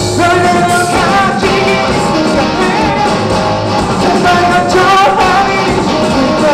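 Live rock band playing at full volume: electric guitar, bass guitar and drums, with an amplified sung melody over them.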